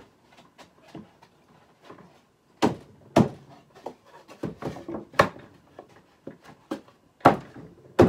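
Wooden beehive box sides knocking and thunking as their finger joints are fitted together, a string of sharp knocks, the loudest about three seconds in and again near the end.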